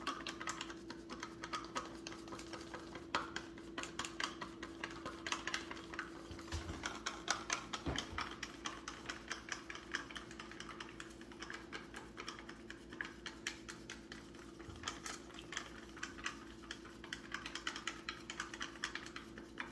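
Rapid, irregular light clicks and ticks throughout, with a steady low hum that fades about a third of the way in.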